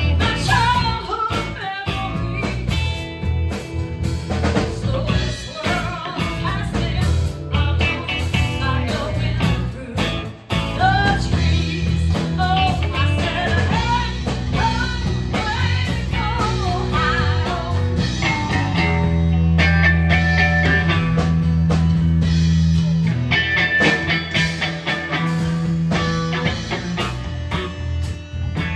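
Live blues-rock band playing: saxophone, electric guitar, bass guitar, acoustic guitar and drums, with gliding melody lines over steady bass notes.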